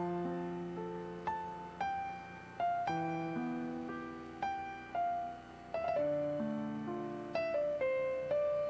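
Slow piano music: single notes and chords struck about once or twice a second, each left to ring and fade away.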